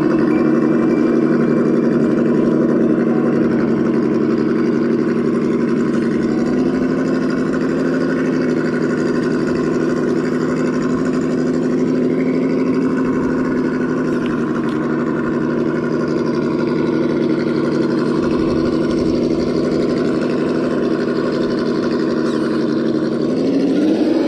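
Electric motor and gearbox of a Traxxas TRX-4 Defender RC crawler, whining steadily as it crawls through a stream and over stones. The pitch steps about six seconds in and rises sharply near the end as the throttle opens.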